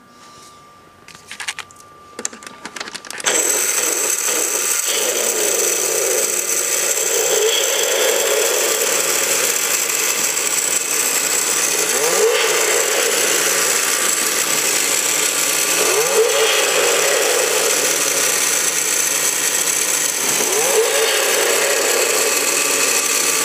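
Recorded hot-rod V8 engine sound played through the speaker of a battery-powered Snap-on Hemi engine model clock. A few clicks as it is switched on, then the engine sound starts abruptly about three seconds in and idles steadily, revving up four times.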